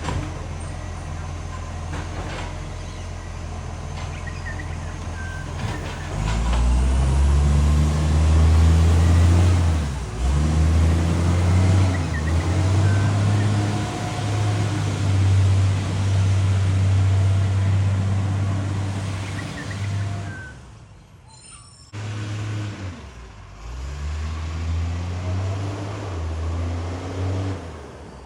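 Garbage truck's diesel engine with a loud exhaust leak, idling, then pulling away about six seconds in and revving up through the gears, with short drops in pitch at the gear changes. It eases off and goes quieter for a couple of seconds near the end, then pulls again.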